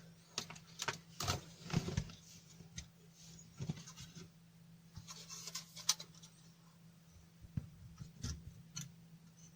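Faint, irregular light clicks and rustles from handling small parts and tools, over a faint steady low hum.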